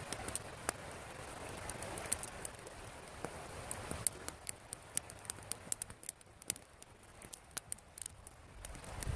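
Wood campfire crackling, with many sharp, irregular pops and snaps over a faint hiss.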